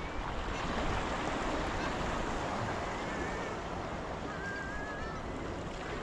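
Steady wash of ocean surf against a rock jetty, with faint wavering bird calls about three seconds in and again about four and a half seconds in.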